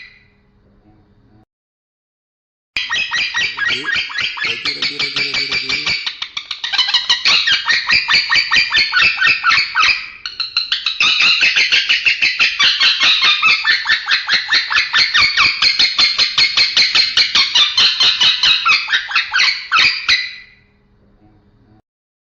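Male lovebird singing a long, fast chatter of rough, scratchy notes at about four a second, the 'kongslet' style of song. It starts after a short silence about three seconds in, dips briefly twice, and stops near the end.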